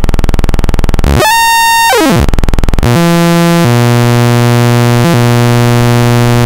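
Computer-generated sawtooth wave from an online wave generator. At 20 Hz it is heard as a fast buzz of separate pulses. About a second in, the pitch sweeps up and back down, and from about three seconds it settles into a steady, buzzy low tone at 120 Hz.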